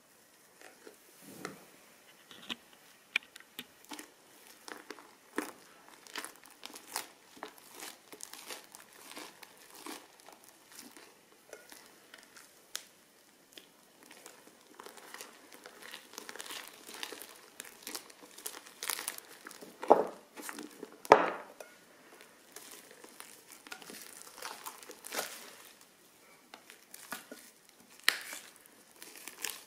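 Crunchy slime being squeezed and worked in plastic piping bags, giving a steady run of irregular crinkles and crackles, with two louder pops about two-thirds of the way through.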